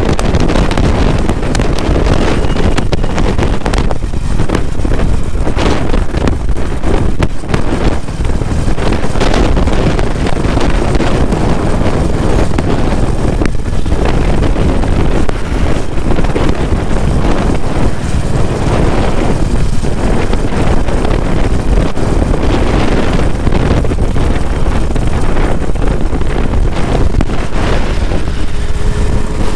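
Wind rushing over the helmet-mounted microphone mixed with the Honda H'ness CB350's single-cylinder engine and exhaust, running steadily at road speed.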